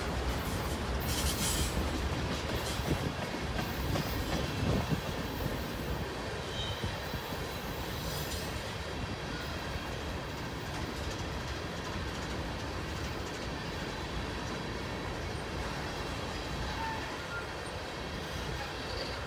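Freight train cars, autoracks and then tank cars, rolling past on the main line: a steady rumble and clatter of steel wheels on rail, slightly louder in the first few seconds.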